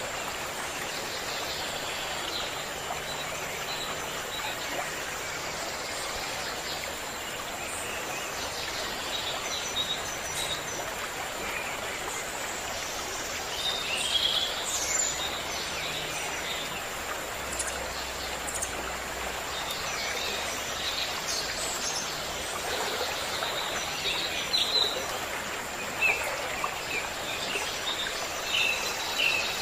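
Running water of a stream, a steady rushing, with songbirds chirping and calling over it, more often in the second half.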